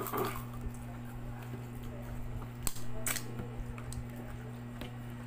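Close-up eating sounds of a person eating crab with the fingers: wet mouth clicks and smacks, with two sharp clicks close together a little under three seconds in, over a steady low hum.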